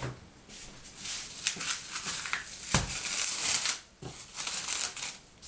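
Plastic cling film crinkling and rustling as hands wrap it around a ball of dough, in uneven bursts, with one soft knock about halfway through.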